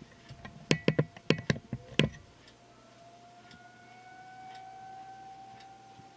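A quick run of about seven sharp clicks or knocks, then a faint outdoor warning siren starting up, its tone rising slowly in pitch.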